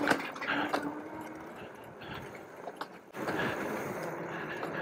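Fat-tire electric mountain bike ridden over a rough dirt trail: rolling tyre noise with scattered clicks and rattles from the bike. A louder, steady rush sets in about three seconds in.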